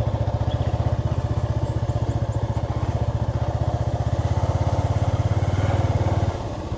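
Motorcycle engine running steadily under way, a fast even low pulsing, which drops noticeably in level about six seconds in.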